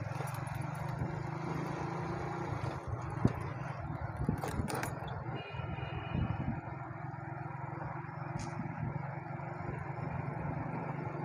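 Steady engine hum and road noise of a moving vehicle, heard from inside it as it drives slowly along a street, with a few short clicks near the middle.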